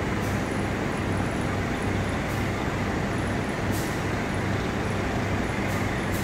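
Steady low hum and rumble of diesel trains running at a station, with a few faint high clicks.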